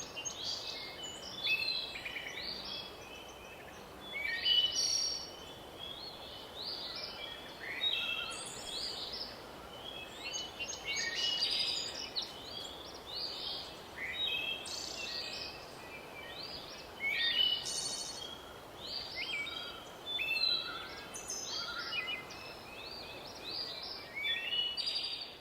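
Songbirds singing, short chirping phrases following one another every second or two and sometimes overlapping, over a faint steady hiss.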